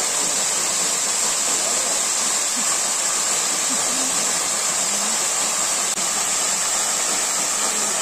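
Narrow mountain waterfall pouring down a rock face onto stones, a steady hiss and splash of falling water.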